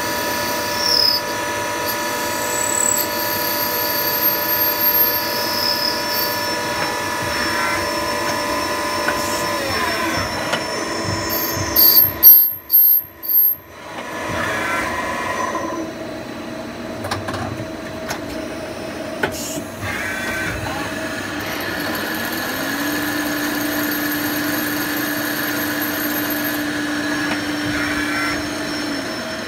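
Nakamura TMC-15 CNC lathe working a brass part: a steady machine whine made of several tones, which shift in pitch about ten seconds in. A few loud knocks come around twelve to thirteen seconds in, and then a new steady low hum starts near the end.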